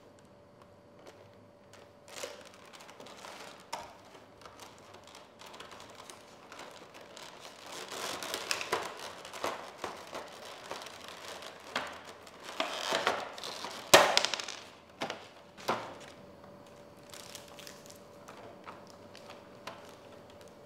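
Plastic packaging being handled: a bag crinkling and a clear plastic blister tray rustling and clicking, in irregular bursts with sharp taps and snaps, the loudest snap about two-thirds of the way in. A faint steady hum lies underneath.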